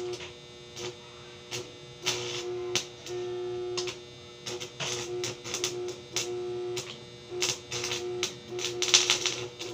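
Electric arc welding on steel window-grille bars: the arc crackles and sputters in a series of short welds, and a steady hum from the welder comes and goes with each one. The crackle is loudest near the end.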